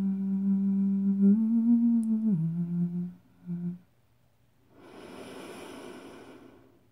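A woman humming with closed lips, holding low steady notes that step down, up and down again, then one short final note, stopping about three seconds in. A soft breathy rush follows for about two seconds.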